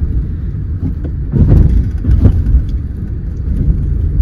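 A car driving, heard as a steady low road and engine rumble, swelling louder about a second and a half in and again a little later.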